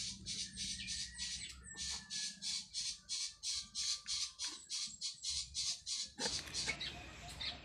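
Rapid, regular chirping from a small creature: short, raspy, high-pitched pulses about four or five a second, stopping about six seconds in.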